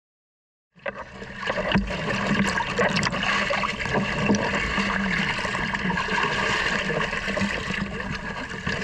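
Seawater sloshing and splashing around a floating raft, picked up close on a small action camera's microphone wet with spray. It cuts in abruptly under a second in and runs on steadily, with a few small knocks.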